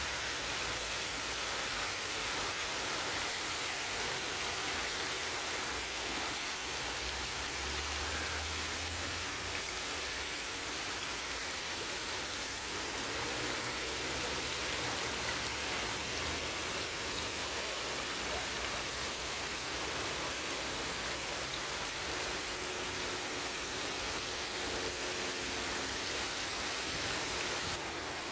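Fountain jet spraying up and splashing down into its basin: a steady hiss of falling water.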